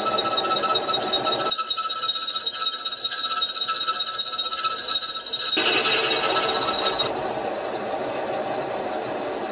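Tapping-size twist drill, driven by a milling machine's horizontal head, cutting a stay hole through duplex stainless steel plate, over the steady running of the machine. The cut gives a high-pitched whine that stops about seven seconds in, leaving the machine running.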